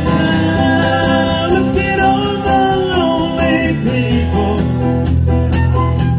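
Live acoustic band: a flute plays a wavering melody over strummed acoustic guitars, with a drum kit keeping time.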